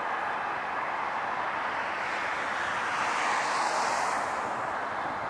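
Jet noise from a Boeing 787-9's two GE GEnx-1B turbofans as the airliner approaches: a steady rumbling hiss that swells slightly about three seconds in, with a higher hiss rising and then fading.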